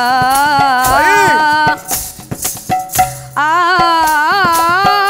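A woman singing long, ornamented held notes in Odia Pala style over a steady drone, with short percussion strikes throughout. The phrase breaks off before two seconds are out, and a new held phrase begins about a second and a half later.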